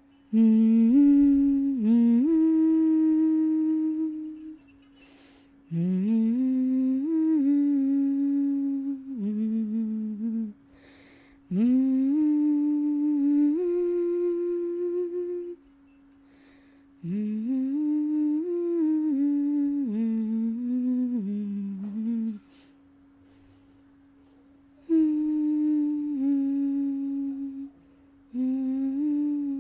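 A person humming a slow, calm melody in phrases of about four seconds with short pauses between them, over a faint steady held tone.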